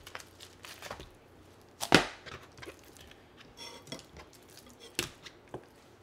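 Raw pork chops being handled and laid down on a plastic cutting board: a few scattered sharp knocks, the loudest about two seconds in, with faint handling noises between.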